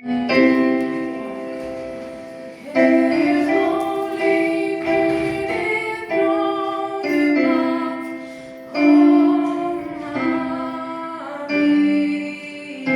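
A choir singing a hymn in sustained held notes, with piano-like chords struck at several points that then fade.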